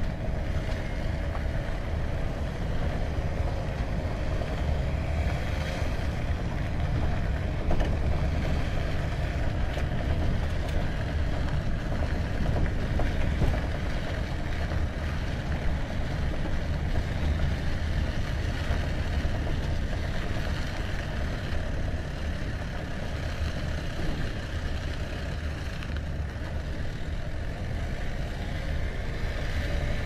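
Steady low rumble of vehicles driving on a gravel road: engine and tyre noise. A faint engine note rises and falls near the start and again near the end.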